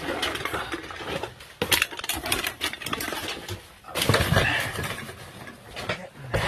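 Irregular knocking, clicking and rustling, with a louder burst about four seconds in.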